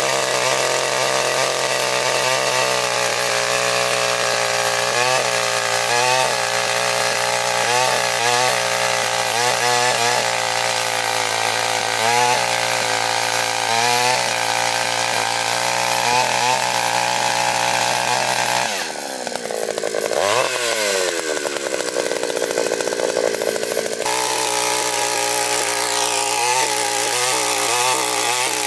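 Takyo TK-3P earth auger's two-stroke, single-cylinder engine running hard as the auger bores into hard, root-filled soil, its pitch dipping and recovering about once a second as the bit bites and frees. About two-thirds through, the sound changes abruptly for a few seconds, with the engine note falling and then climbing back before the steady working sound returns.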